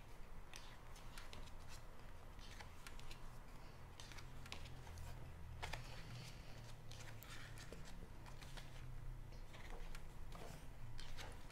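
Paper pages of a photobook being turned and handled by hand: faint rustles and soft page-flips at irregular moments, over a low steady hum.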